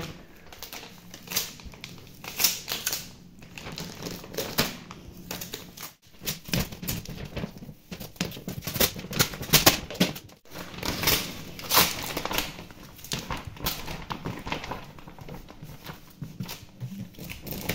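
Crinkling and crackling of a peel-and-stick PVC marble sheet as its adhesive backing is peeled away and the sheet is pressed and smoothed down by hand: a run of irregular rustles, clicks and small snaps.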